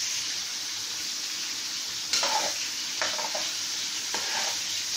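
Meat sautéing with garlic and onion in a metal pot, a steady sizzle, while a metal spoon stirs and scrapes the pot, with sharper scrapes about two, three and four seconds in.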